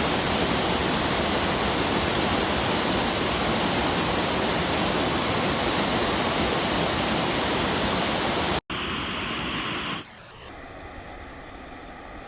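Waterfall roaring, a loud steady rush of falling water. It breaks off abruptly at a cut about nine seconds in, and a second, much quieter steady rush of water follows.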